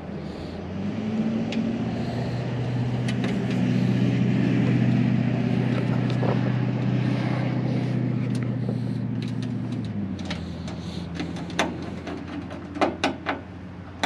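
A vehicle engine running. It grows louder about a second in and eases off again near ten seconds. A few sharp clicks come near the end.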